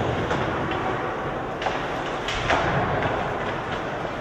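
Ice hockey play: a steady scraping rumble of skates on the ice, broken by a few sharp clacks of sticks and puck, three of them close together in the middle.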